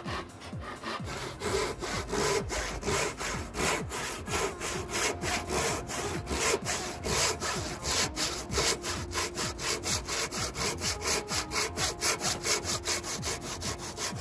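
Dozuki Japanese pull saw cutting through a small block of stained knotty pine by hand, a steady run of quick, even back-and-forth strokes, about four a second.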